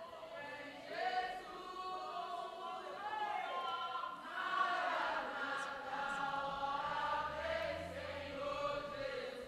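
A group of voices singing together in long held notes, without distinct words.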